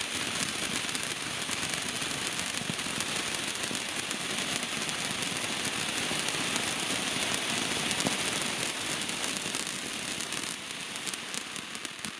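Jorge "Crackling Vulkan" ground fountain burning: a steady rushing hiss of sparks thick with fine crackles, thinning a little near the end.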